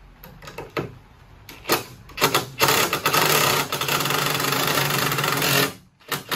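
Cordless DeWalt drill/driver driving a long wood screw at an angle through joist blocking: a few short trigger bursts, then a steady run of about three seconds that stops sharply, and another short burst at the very end.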